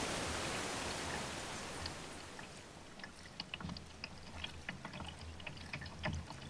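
A steady hiss for about the first two seconds, then water dripping and trickling off a kayak paddle during strokes, with small scattered drips and splashes.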